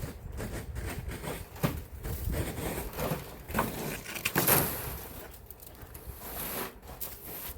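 Wet, slushy snow being scraped and swept off a car, a run of irregular scraping strokes, the loudest about halfway through.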